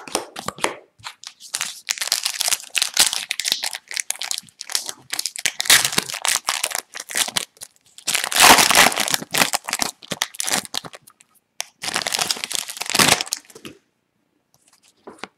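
A foil trading-card pack wrapper being torn open and crumpled by hand, crackling in several bursts, the loudest about eight seconds in, with a short quiet pause near the end.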